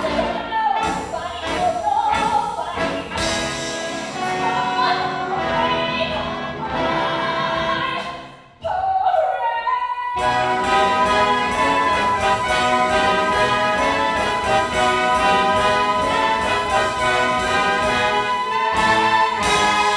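A woman belting a Broadway show tune with a full pops orchestra and brass. After a brief break about halfway through, she holds one long high note over repeated orchestral chords, the song's climactic finish.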